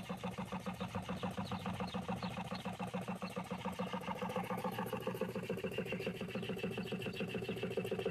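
A rebuilt 1949 Deming Marvelette piston water pump running, belt-driven by its electric motor, with a fast, even clatter of piston strokes. This is the pump's test run after reassembly. About halfway through, a higher steady whine joins the clatter.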